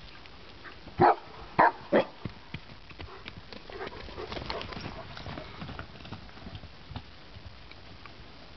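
White Swiss Shepherd dog barking three times in quick succession, about a second in, followed by fainter scattered sounds.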